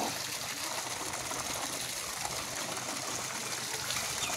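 Water gushing steadily out of a hand pump whose handle is not being worked, splashing onto muddy ground: heavy rain has pushed groundwater up so that the long-dry pump flows by itself.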